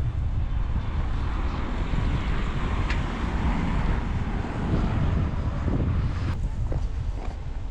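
Strong wind buffeting the microphone: a loud, rough rumble with a few faint clicks, easing slightly near the end.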